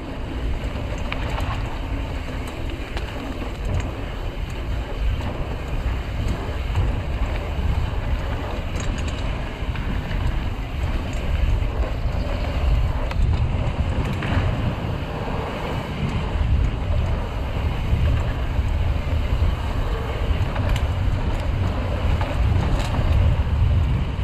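Wind rushing on the microphone and tyre noise from a mountain bike rolling down a dirt trail, with scattered light clicks and rattles.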